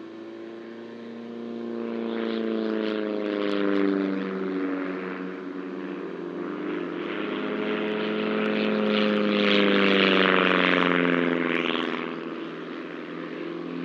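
Two Silence Twister light aerobatic aircraft flying a display, their piston engines and propellers droning. The engine notes glide up and down as they manoeuvre. The sound swells twice, loudest about ten seconds in as they pass closest.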